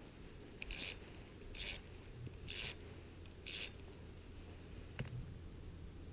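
Fishing line running against an ultralight spinning reel in four short rasping strokes about a second apart, as a jig is worked down the hole toward a pickerel. A single sharp click follows about five seconds in.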